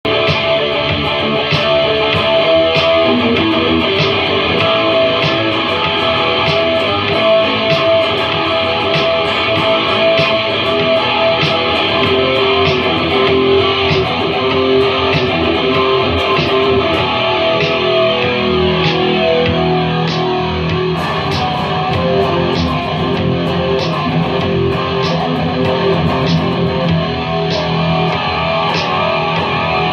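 Guitar music, likely electric guitar, playing sustained notes over a steady, evenly spaced tick-like beat; the lower notes get fuller about two-thirds of the way through.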